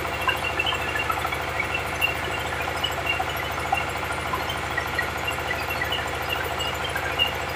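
Dongfeng 24 hp single-cylinder diesel engine running steadily under load, driving a belt-driven rice milling machine, with many small scattered ticks and rattles from the running mill.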